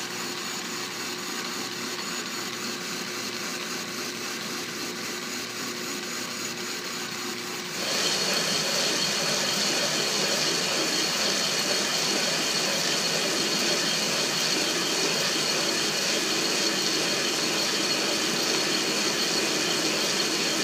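Metal lathe turning a steel bushing made from old oil-well drill stem. The machine runs steadily, then about eight seconds in the cut gets louder with a steady high whine.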